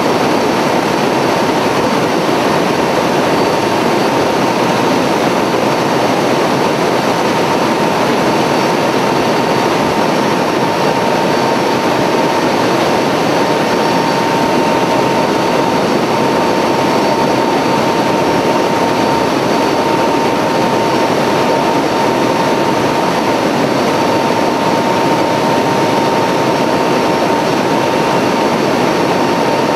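Aircraft engines running steadily, heard from inside the cabin: a loud, unbroken rush with a thin steady whine in it.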